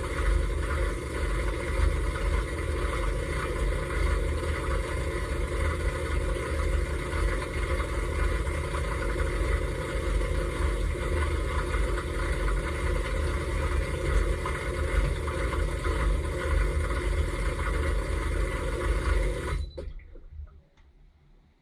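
Dishwasher running, heard from inside the tub: a steady wash noise with a low rumble that cuts off suddenly about twenty seconds in, leaving it nearly silent.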